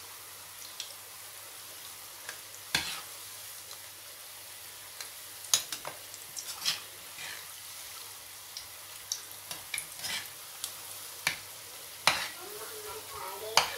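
Besan pakoras deep-frying in hot oil in a kadhai: a steady, gentle sizzle. A metal slotted spoon turning them clicks and scrapes against the pan at irregular moments.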